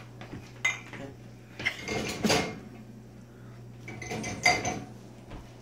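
Kitchen utensils clinking and scraping against dishes in several short clatters, over a steady low hum.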